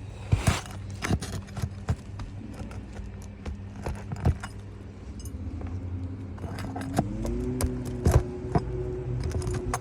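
Sharp metallic clinks, knocks and scrapes of a steel shingle-removal tool working at roofing nails under asphalt shingles. Under them runs a steady low hum that rises in pitch about seven seconds in and then holds.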